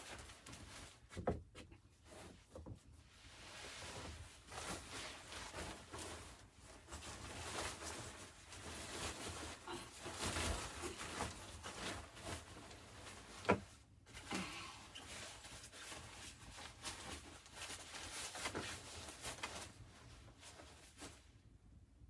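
Rustling and scattered light knocks of things being handled, with two sharper knocks, one about a second in and a louder one past the middle.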